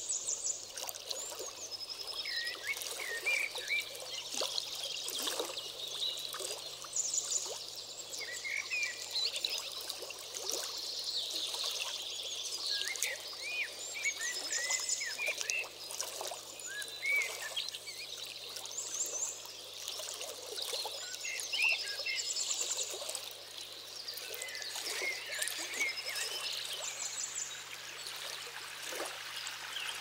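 Many small songbirds chirping and trilling over one another, short quick phrases all through, over a steady hiss in the background.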